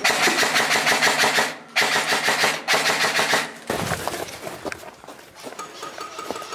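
Airsoft rifle firing on full auto in three rapid bursts over the first three and a half seconds, a fast even clatter of shots. After that it is quieter, with scattered single clicks.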